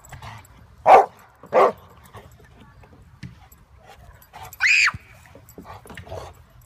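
English Mastiff barking twice in quick succession about a second in, then a short high-pitched squeal near the middle.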